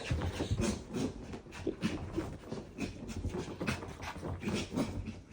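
A dog panting in quick, uneven breaths, out of breath from jumping and running about.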